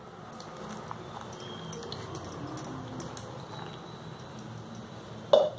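Wire whisk stirring gram flour and a poured paste in a glass bowl, its wires lightly clicking and scraping against the glass, over a steady low hum. One brief louder sound comes near the end.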